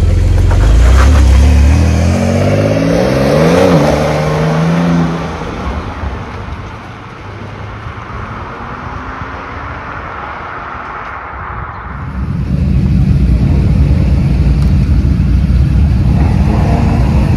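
Porsche 911 GTS flat-six accelerating hard away, pitch climbing and dropping through gear changes, then fading into the distance. About twelve seconds in, a classic air-cooled Porsche 911 race car's flat-six takes over, running loud and steady at low revs.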